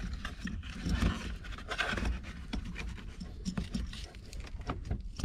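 Scraping, rustling and small irregular clicks of hands and a thin tool working at the mirror's wiring harness and plastic connector inside a stripped car door, over a low rumble.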